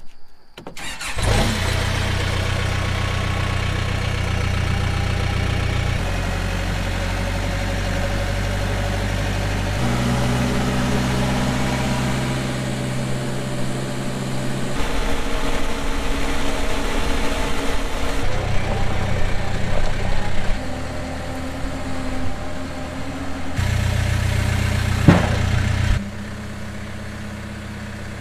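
A backhoe's diesel engine is cranked with the key and catches about a second in, then runs. The engine sound changes abruptly several times, with one sharp knock near the end.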